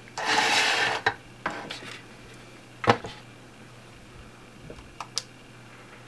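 Handling sounds: a rustling scrape as plastic camera battery packs are pushed across a tile board, a sharp knock about three seconds in as a plastic digital scale is set down, then a few small clicks near the end as the scale's power button is pressed and it switches on.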